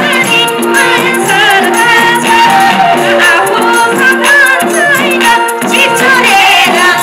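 A Nepali Teej folk song: a woman sings a wavering melody into a microphone over instrumental backing, with percussion keeping a steady beat.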